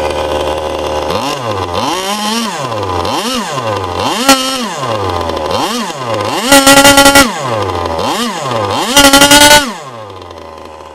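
K&B 72 glow-fuel model engine driving a Byro-Jet ducted fan, running steadily and then revved up and down about once a second, with two longer bursts held at high revs. The engine note drops away sharply near the end.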